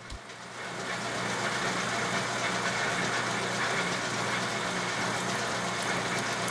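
South Bend metal lathe running with a steady motor hum while a twist drill fed from the tailstock bores into a spinning aluminium part. The cutting hiss builds about a second in and then holds steady.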